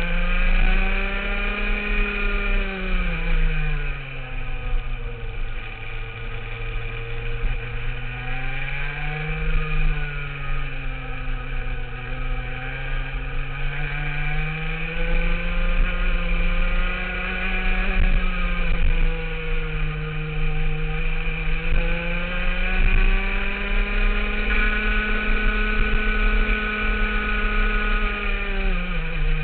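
Rotax two-stroke kart engine heard on board at racing speed, its revs climbing along the straights and falling away under braking for the corners. The revs drop about two seconds in, build again twice, hold high for several seconds near the end, then fall.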